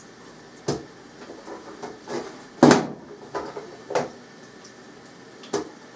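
Sharp plastic clacks and knocks from a hand-pressed vegetable dicer as a potato half is laid on its blade grid and the hinged lid is pushed down through it. There are about half a dozen separate knocks, the loudest about two and a half seconds in.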